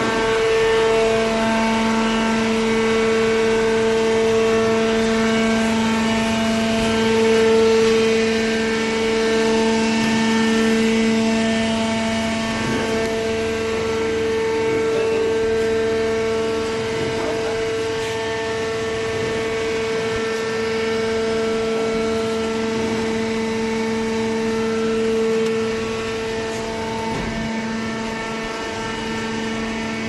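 Electric motor and hydraulic pump of a manual-tie horizontal cardboard baler running, a steady whining hum that holds one pitch throughout.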